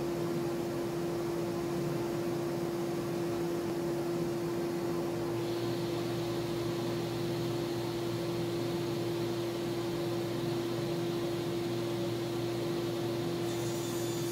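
A workshop machine motor running steadily: an even drone carrying one strong steady hum tone, with no cutting or impacts heard.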